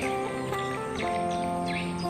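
Background music of held notes that shift pitch about once a second, with short bird chirps over it.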